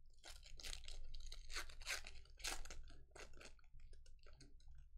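Foil wrapper of a football trading-card pack being torn open and crumpled in the hands: a quick run of sharp crackling rips and crinkles that thins out near the end.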